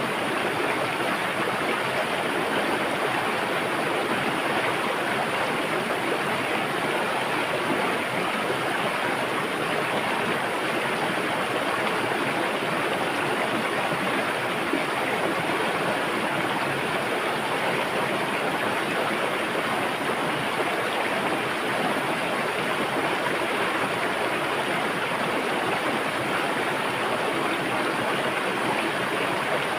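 River water rushing and splashing over rocks, a steady, even sound with no letup.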